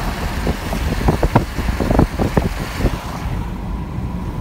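Steady low rumble of a car driving on a wet road, heard from inside the cabin, with a high hiss that fades about three seconds in. A cluster of short knocks and taps comes through the middle.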